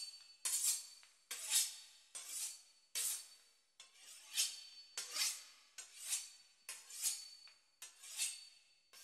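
Knife sawing back and forth through the crisp pastry crust of a beef wellington: a row of short scraping rasps, a little more than one a second.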